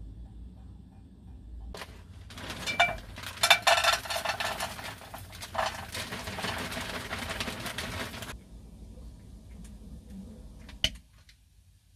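Food tipped from a crinkling plastic packet into a hot saucepan on a portable gas stove, sizzling and crackling from about two seconds in until it cuts off abruptly about eight seconds in. A single sharp click near the end.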